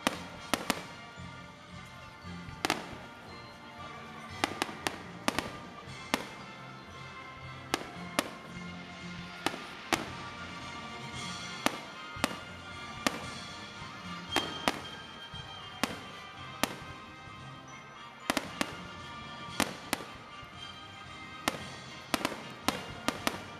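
Aerial firework shells bursting in sharp bangs, about one a second, some coming in quick doubles and triples. Music plays underneath.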